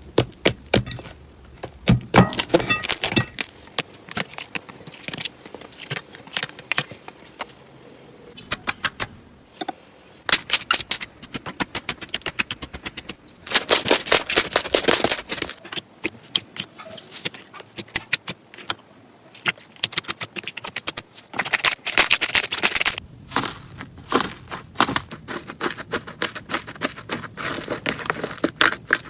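Slime being squeezed and pressed by hand, giving dense runs of crackling, popping clicks that come in bursts, loudest around the middle and again a little before the end.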